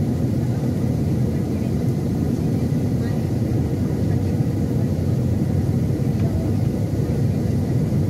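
Steady in-flight cabin noise of a Boeing 737-800, heard by the wing: its CFM56-7B turbofan engines and the rush of air past the fuselage blend into an even low rumble.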